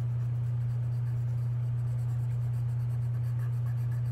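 Colored pencil scratching on paper in short strokes, laying in fur. Under it runs a steady low hum, the loudest sound.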